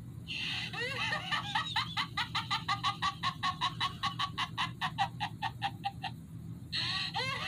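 Chucky's high-pitched, rapid cackling laugh, about seven 'ha's a second, breaking off briefly near the end and starting again. A steady low hum runs underneath.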